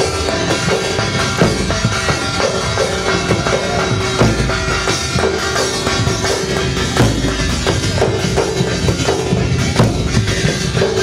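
Loud folk music for a Gair dance: steady drumming with a held tone running over it.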